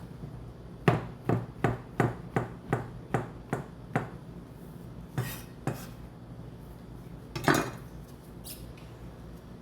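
Kitchen knife chopping vegetables on a cutting board: about nine crisp strokes at roughly three a second, then a couple of softer knocks and a longer scrape.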